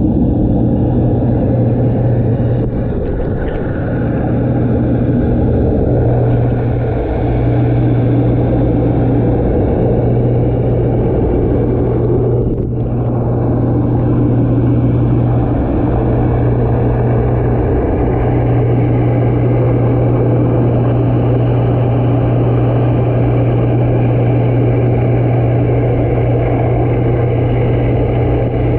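Leisure Bay hot tub's jet pump heard underwater: a steady low motor hum over the rushing of water and air from the jets. The hum breaks off briefly a few times.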